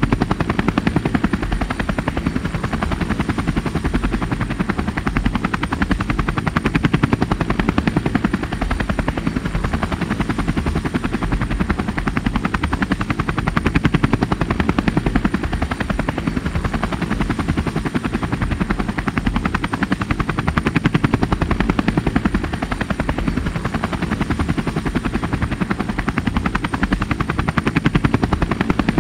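Helicopter rotor blades chopping steadily in a fast, even beat, loud and unchanging, with a thin high whine over it.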